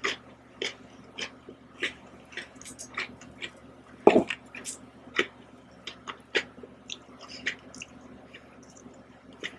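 Close-miked mouth sounds of eating ice cream with Oreo biscuits: wet smacks and chewing clicks about two a second. A louder knock about four seconds in comes as the metal spoon digs into the ice cream block.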